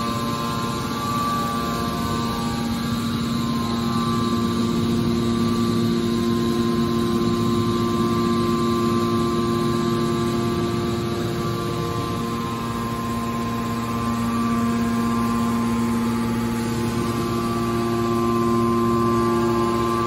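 Hydraulic power unit of a metal baler running: an electric motor driving the hydraulic pump gives a steady hum with several constant tones over a rushing noise.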